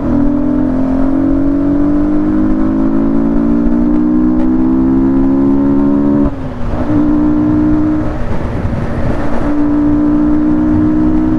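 Yamaha MT-15's single-cylinder engine, fitted with an aftermarket Akrapovic exhaust, pulling under acceleration while riding. The revs climb steadily for about six seconds, drop briefly at a gear change, then hold fairly steady.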